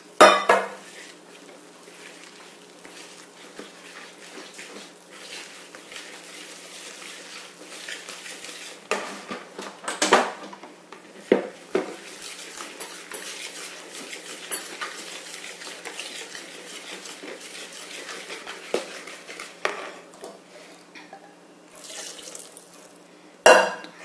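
Wire whisk beating cake batter by hand in a bowl: steady clinking and scraping of the wires against the bowl. A few sharper knocks stand out, the loudest right at the start and near the end.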